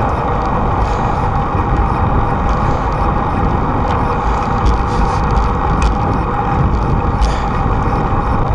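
Steady wind and road noise picked up by a bicycle-mounted camera while riding along a paved path, heaviest in the low rumble and without a break.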